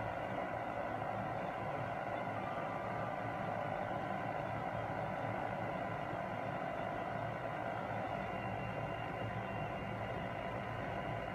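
Steady hiss with a low hum, the background noise of a patrol car's dash-camera recording with the engine idling.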